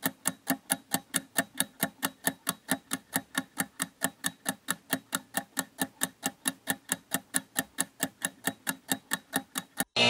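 Ticking clock sound effect used as a round timer, an even tick at about five a second. It stops abruptly just before the end.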